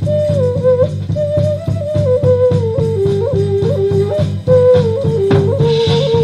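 Background music: a lead melody moving up and down over a steady low accompaniment with a regular beat.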